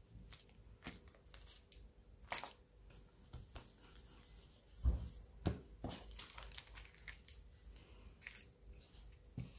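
Thin clear plastic sheet crinkling and rustling as it is handled and pressed onto paper during ink smooshing, with scattered light taps and one louder soft thump about five seconds in.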